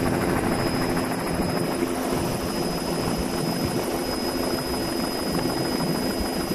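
Steady engine drone.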